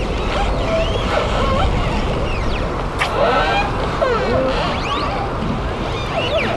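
Harbour ambience: a steady low rumble with faint distant voices and high rising and falling calls scattered over it, and a single sharp click about three seconds in.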